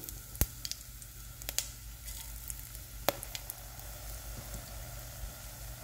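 Whole spices (cumin seeds, cloves, cinnamon stick and bay leaf) sizzling gently in hot oil in a stainless steel pot. A few sharp crackles stand out, the loudest about half a second in.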